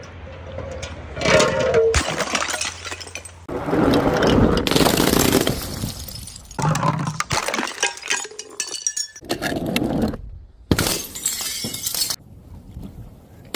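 Glass bottles and jars being smashed: a string of separate breaks, each cut off abruptly where the next begins. The loudest come about a second in and around four to five seconds in.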